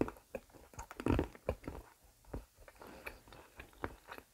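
Close-miked chewing of a milk chocolate egg: soft, irregular mouth clicks and smacks, a little louder about a second in.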